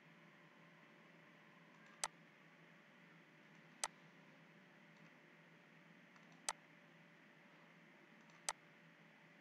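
Four single computer mouse clicks, about two seconds apart, over faint steady room hiss.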